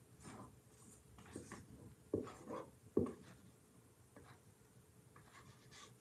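Spatula scraping thick whipped egg-white batter out of a stainless steel mixing bowl: faint soft scrapes, with two sharper knocks about two and three seconds in.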